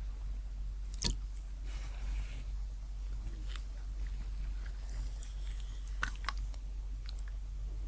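Close-miked eating sounds: chewing and biting with scattered small crisp clicks, a sharp one about a second in and a cluster of them around six seconds.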